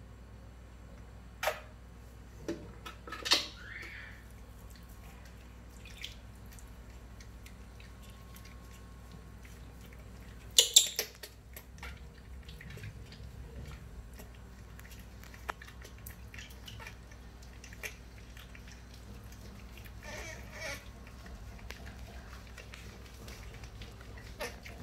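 Bath water splashing and dripping in a plastic basin as hands wash a newborn monkey: scattered short splashes, with a louder burst of splashing about eleven seconds in. A brief high squeak from the infant monkey comes about three and a half seconds in.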